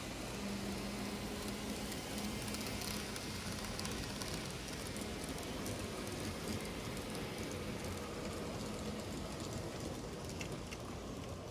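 Model trains running on the layout track: a steady rattling hiss of small wheels on rail, over a steady low hum.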